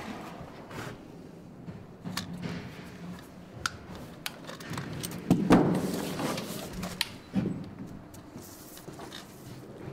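Handling noises of a plastic plumbing stub-out box and blue PEX water pipe: scattered clicks and knocks as the box is fitted onto the pipe, with a louder rustling clatter about halfway through as the pipe is moved.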